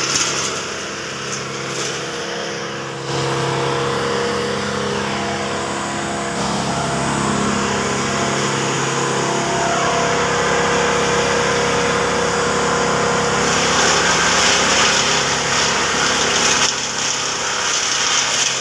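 Wood chipper running, its engine steady as it grinds tree branches. The sound steps up about three seconds in and grows louder and harsher for about three seconds near the end.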